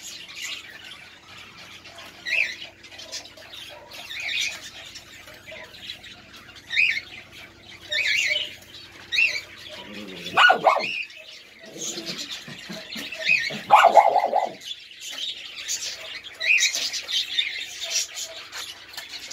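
Small birds chirping on and off throughout, with a few louder calls from the small dogs about ten seconds in and again around fourteen seconds, each brief.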